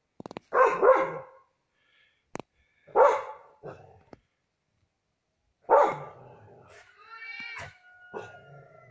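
Black standard schnauzer barking: loud single barks about two to three seconds apart, then a higher-pitched, drawn-out call near the end.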